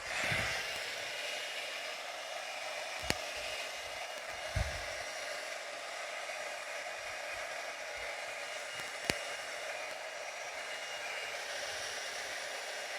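Hair dryer running steadily, blowing wet poured acrylic paint outward to open a bloom. It switches on right at the start, and a few light knocks come through over it.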